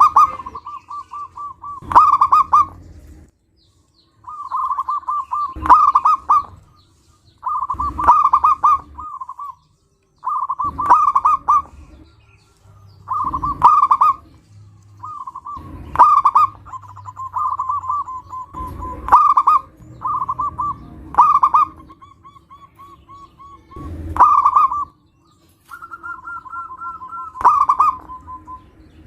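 Zebra doves (perkutut) cooing: a series of rapid, trilled coo phrases, one every two to three seconds, each opening with a loud note. Near the end two birds coo at once at slightly different pitches.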